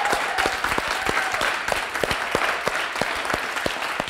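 A group of people applauding, many hands clapping together, the applause gradually dying down.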